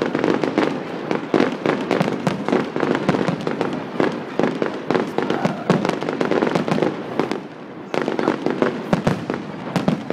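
Fireworks display: a rapid, continuous barrage of bangs and crackles, easing off briefly about three-quarters of the way through before building again.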